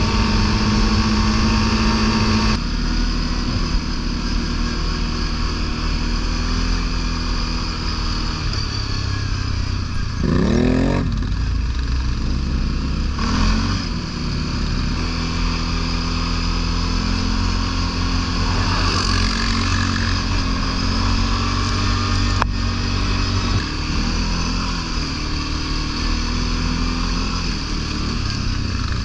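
ATV engine running as the quad rides along, with a brief rise and fall in engine speed about ten seconds in.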